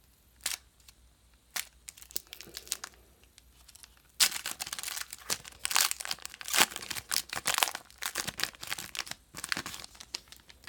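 A trading-card pack wrapper being torn open by hand, crinkling and ripping. A few scattered crackles are followed, about four seconds in, by a dense run of crinkling and tearing that lasts about six seconds.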